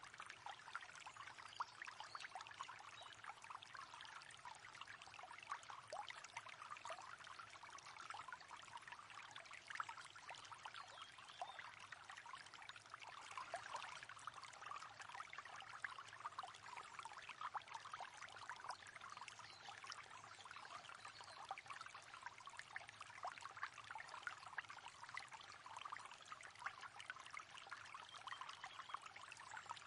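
River water flowing over stones, a soft steady trickling and splashing.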